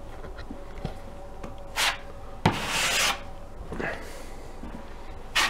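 Handling noise on the camera as it is moved and covered: a few short scrapes and rubs against the microphone, with a click about two and a half seconds in followed by half a second of rubbing.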